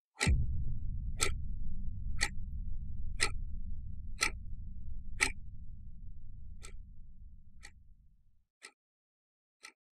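Quartz wall clock ticking steadily, about once a second. Just after the start a deep low rumble comes in suddenly, louder than the ticks, and fades out over about eight seconds.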